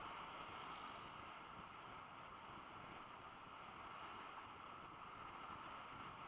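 Faint, steady rush of wind and road noise picked up by a dashcam's microphone on a moving vehicle, with no distinct engine note or other event standing out.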